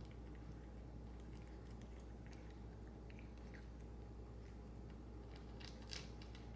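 A cat crunching dry kibble: faint, irregular crunches and clicks, with a louder cluster near the end.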